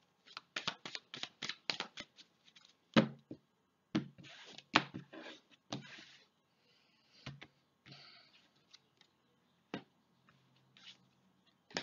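A deck of fortune-telling cards shuffled by hand: a quick run of card clicks in the first two seconds, then scattered single taps and soft slides as cards are handled.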